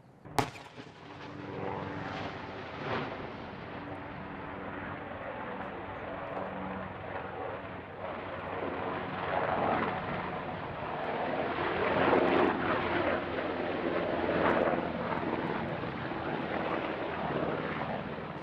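A sudden sharp crack about half a second in, then a Black Hawk-type military helicopter flying by, its turbine and rotor running steadily and growing louder toward the middle, loudest a little past halfway.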